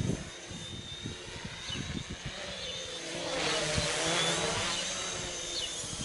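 Homebrew H-frame quadcopter's motors and propellers buzzing in flight, growing louder from about three seconds in, the pitch shifting as the throttle changes.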